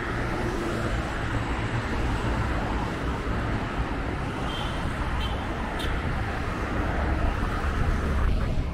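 Steady road traffic noise from cars passing on a busy multi-lane highway, a continuous wash of engine and tyre sound with a deep rumble underneath.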